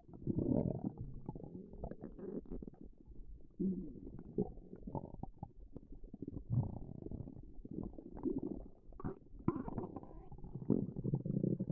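Human stomach growling: a string of irregular rumbles and gurgles that swell and fade every second or two, with a few short squelches in between.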